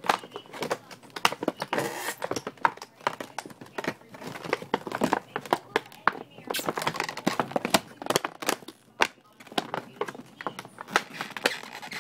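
Plastic packaging crinkling and rustling, with irregular sharp clicks and knocks, as the parts of a car amplifier wiring kit are handled and unpacked.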